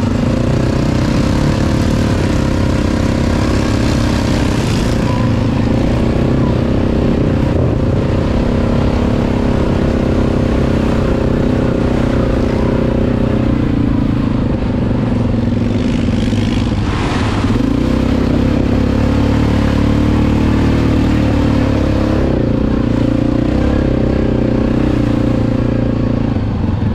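ATV engine running steadily while riding, its pitch shifting a few times as the throttle changes.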